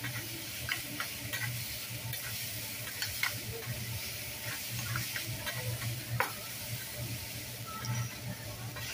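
Fried rice sizzling on a hot steel teppanyaki griddle while a metal spatula and fork chop and scrape it, with scattered clicks of metal on the griddle and one sharper click about six seconds in.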